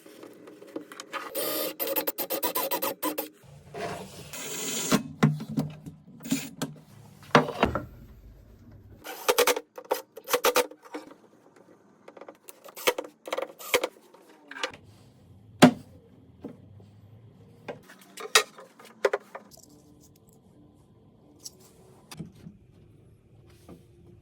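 Workshop sounds of hinge fitting on a wooden door: short runs of a small power tool, a quick series of clicks, and scattered sharp knocks and scrapes of wood and metal hardware.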